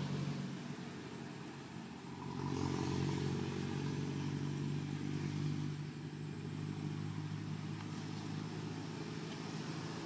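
An engine running with a steady low hum, getting louder for a few seconds about two seconds in, then settling back.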